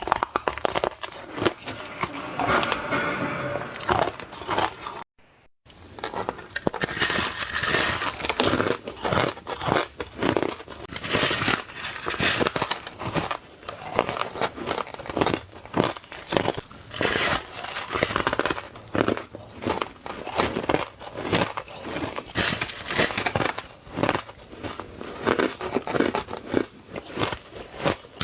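Close-up biting and chewing of soft, crunchy ice: dense crunching and crackling, many quick bites in a row. The sound drops out briefly about five seconds in.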